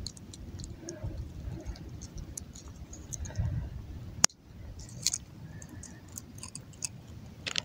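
Scattered light clicks and handling noise over a low rumble, with one sharp click about four seconds in.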